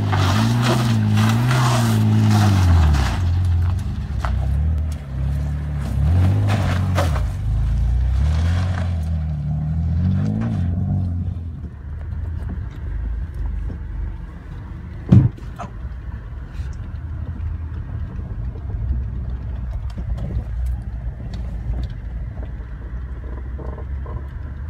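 Audi A4 quattro engine revving up and down about four times, with a rushing noise over it. About 12 seconds in the sound drops to a lower, steady rumble of the car driving on a dirt track, heard from inside the cabin, with one sharp thump about 15 seconds in.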